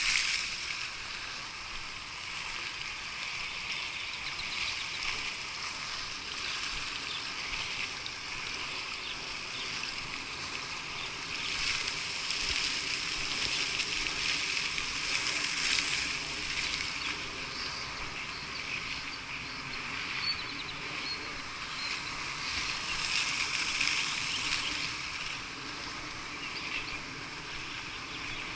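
Fountain jet splashing into a reflecting pool: a steady hissing splash of water that swells a little now and then.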